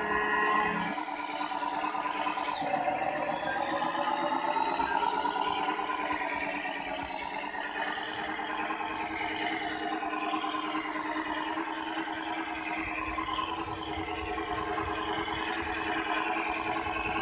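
Drivetrain of a radio-controlled Hino 700 dump truck whining as it crawls through mud, with mechanical rattling. About three seconds in, the whine rises in pitch as the truck speeds up.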